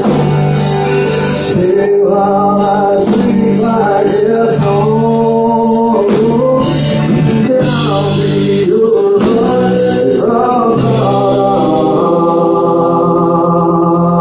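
Live rock band playing: electric guitar, bass and drums with a male lead vocal. Near the end the cymbals drop out and the band holds a final chord.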